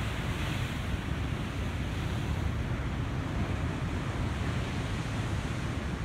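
Heavy ocean surf breaking over offshore rocks and washing up a sand beach: a steady rush of water. Wind buffets the microphone with a low rumble.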